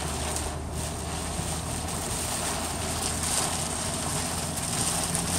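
Motor vehicle driving on a rain-soaked road: a steady low engine hum under a constant wash of wind, tyre and rain noise.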